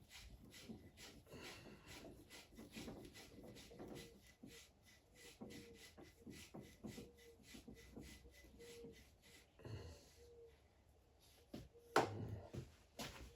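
Faint handling noises of motorcycle fork parts being worked by hand: rubbing, light scrapes and small clicks, with one sharp knock about twelve seconds in.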